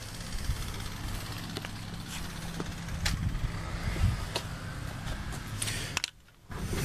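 Footsteps and camera handling noise with scattered light knocks and clicks, over a steady low hum. The sound drops out briefly near the end.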